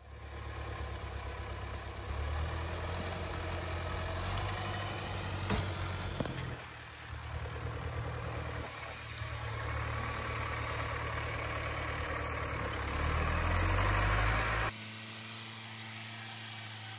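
Diesel engine of an LKT forestry skidder working hard as its front blade digs and pushes soil to cut a forest road, the engine note rising and falling with the load. It is loudest just before it drops suddenly to a quieter, steadier run.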